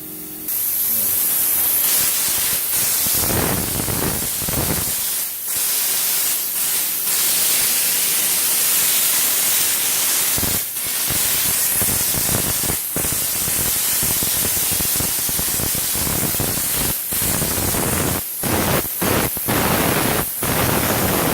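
Loud, steady hiss like static, broken by brief gaps, more often near the end.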